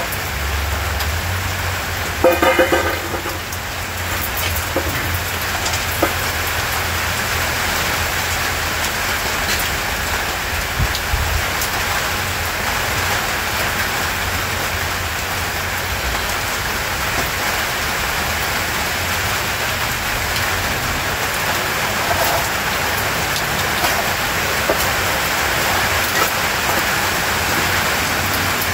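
Heavy rain falling steadily, a continuous even hiss. A brief pitched toot sounds about two seconds in, and there are a few faint clicks.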